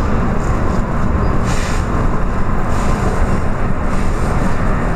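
Steady low rumble of an electric suburban passenger train running, heard inside the carriage, with a couple of brief hisses.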